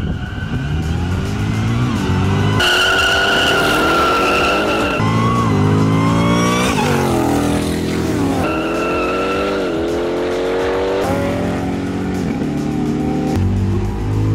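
Cars launching from a standstill in a drag race and accelerating hard, the engine note climbing and dropping back at each gear change several times over. A high, steady tyre squeal comes twice, a few seconds in and again near the middle.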